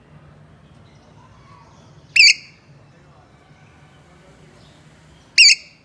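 A parrot giving two short, high-pitched calls about three seconds apart, each a quick wavering note.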